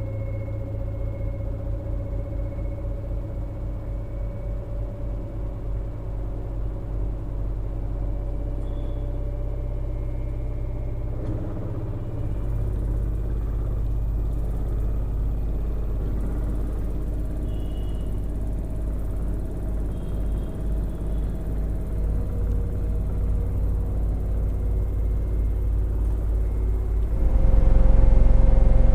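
LG direct-drive front-load washing machine spinning its load of T-shirts and jeans, a steady low hum with a fast even pulse and a faint motor whine. It grows louder and steps up sharply near the end as the drum speeds up.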